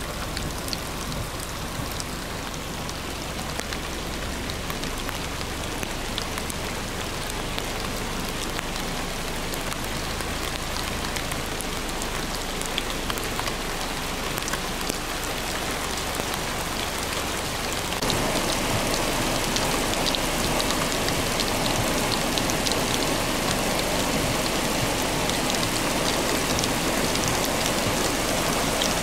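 Heavy rain pouring down onto flooded pavement and standing floodwater: a dense, steady hiss with fine pattering drops. It gets louder about eighteen seconds in.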